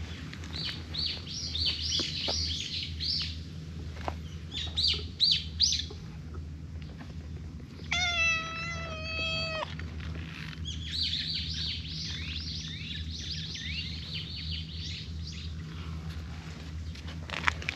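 Small birds chirping in quick runs of short, high, falling notes, with a cat meowing once in a long, steady call about eight seconds in.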